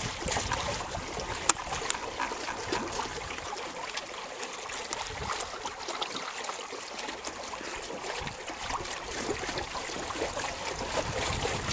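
Water splashing and trickling along the hull of a small plywood sailing proa under way, with scattered small ticks and one sharp click about one and a half seconds in.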